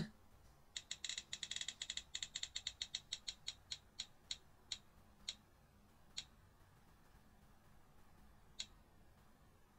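Spin-the-wheel app on a smartphone ticking as its wheel spins: rapid clicks that slow and spread out as the wheel coasts to a stop, the last few ticks more than a second apart.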